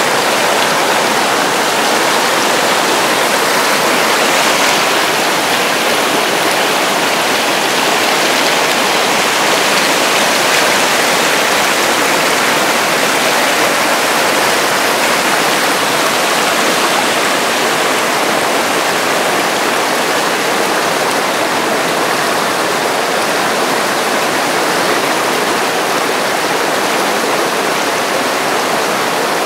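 Glacier-fed creek rushing over rocks in whitewater rapids: a loud, steady rush of water.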